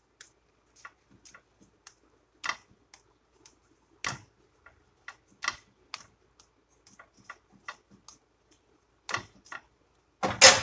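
Slotted metal spatula tapping and scraping against a pan while pressing a quesadilla, making irregular light clicks with a louder clatter near the end.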